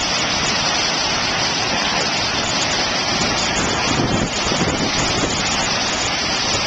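Large waterfall's steady rush of falling water, a constant even noise with no breaks.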